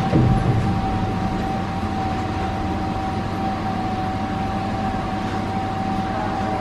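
Interior sound of a Pesa 120Na Swing low-floor tram running: a steady rumble of the wheels and running gear under a constant high electrical whine.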